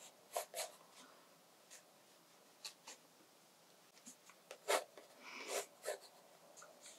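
Pencil drawing faint sketch lines on watercolour sketchbook paper: a series of short strokes at irregular intervals, with a slightly longer, louder stroke a little past the middle.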